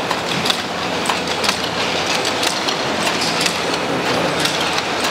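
Bottling line machinery running with a steady mechanical din and dense, irregular clicks and clinks of glass bottles and the cap-sealing machine.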